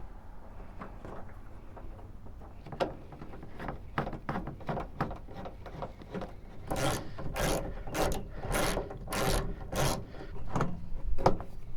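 Door trim panel of a 1979 Dodge D-150 pickup being handled and worked against the door while it refuses to sit flush: scattered knocks and clicks, then a run of rubbing, scraping strokes, a little under two a second, in the second half.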